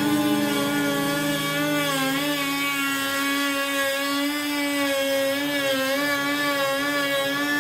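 High-speed electric power tool motor running with a steady whine, its pitch wavering slightly as it works the wood.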